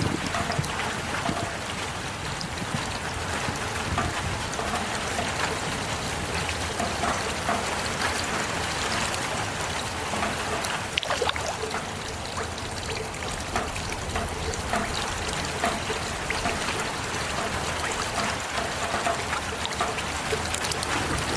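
Heavy rain falling steadily, with many separate drops and splashes ticking through the hiss.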